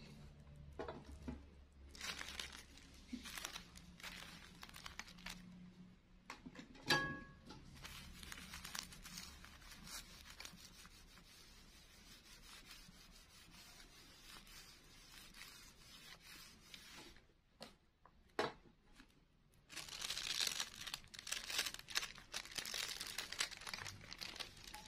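Thin clear plastic sheets crinkling and rustling as they are handled and pressed flat under a clothes iron to fuse the layers. A single sharp tap comes about seven seconds in, and the rustling grows denser and louder near the end.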